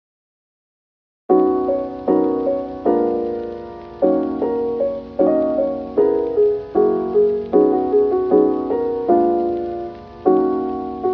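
Background piano music: after about a second of silence, a gentle piano piece begins, with struck chords and notes that ring and fade one after another.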